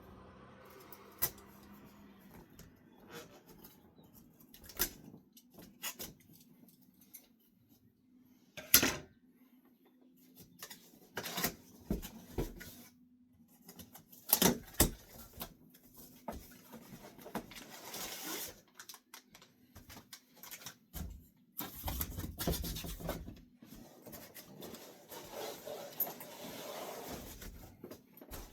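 Unpacking noises: scattered sharp clicks and knocks, with several bursts of rustling packaging, as a guitar is taken out of its shipping box.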